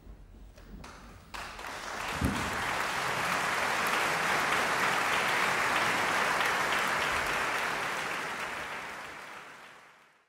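Theatre audience applauding at the end of an opera number: dense steady clapping that starts abruptly about a second in, swells, then fades out near the end. A short low sound stands out about two seconds in.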